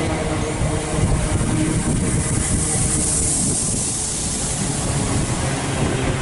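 Great Northern electric multiple unit running past along the platform: a steady low rumble of wheels on rail, with a high hiss that swells and fades around the middle.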